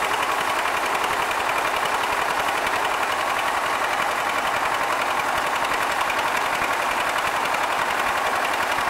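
Diesel engine running steadily with an even, rapid clatter.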